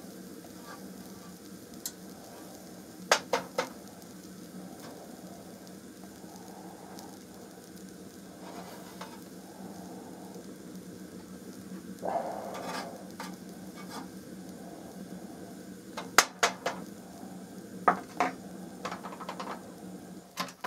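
Steady hiss of a portable gas stove's burner heating a steel shovel blade of vitriol powder, with a metal spoon clinking and scraping on the shovel several times.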